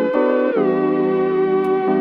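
Instrumental music: a gliding lead melody that slides up and then back down about half a second in, over held chords.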